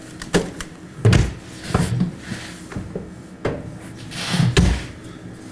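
Knocks and thumps of things being moved about inside a portable fridge-freezer, its contents and lid handled, with heavier thumps about a second in and near the end.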